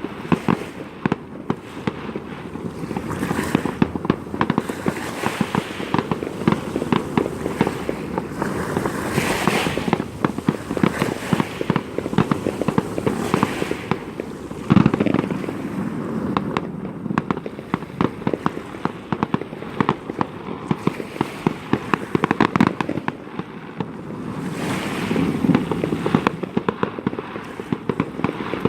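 Fireworks display: a dense, unbroken run of bangs and crackles, with the heaviest boom about fifteen seconds in.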